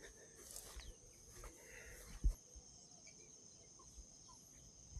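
Faint, steady, high-pitched chirring of insects, with one short low thump a little over two seconds in.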